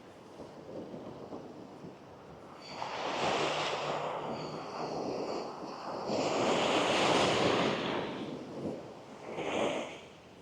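Gentle sea waves breaking and washing up a sandy beach in three swells: one about three seconds in, a louder, longer one at about six seconds, and a short one near the end.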